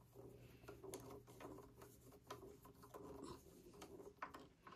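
Faint scraping and small ticks of a hand screwdriver turning a small screw into a serger's light housing.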